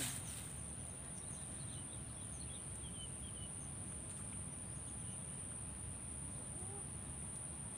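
Outdoor bankside ambience: a steady high-pitched insect drone over a low background rumble, with a few faint bird chirps about two to three seconds in.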